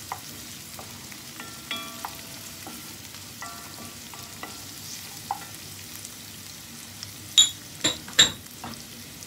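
Sliced onions and garlic sizzling in hot oil in a nonstick pan as a wooden spatula stirs them. Three sharp knocks near the end are the loudest part.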